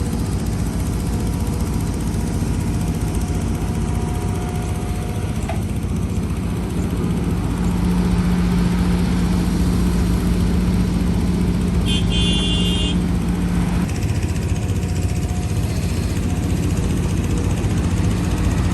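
Heavy diesel construction machinery running: a steady low engine drone that grows louder and holds a strong, even note from about six to fourteen seconds in. A short high-pitched beep sounds about twelve seconds in.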